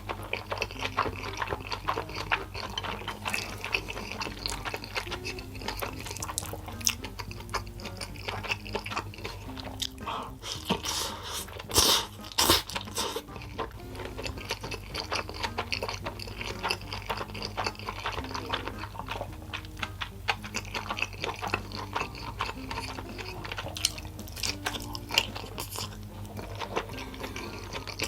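Close-up eating sounds: a person chewing and biting yakisoba noodles in many small, irregular wet clicks, with a louder noisy stretch about twelve seconds in. A soft background melody plays underneath.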